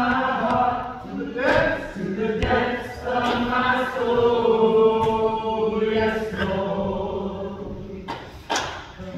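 Group of voices singing together, holding long, slow notes.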